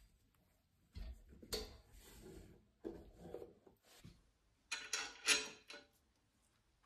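Gloved hands handling and fitting together lamp parts: a low thump about a second in, a few knocks and rubbing, and the loudest scraping and rustling around five seconds in.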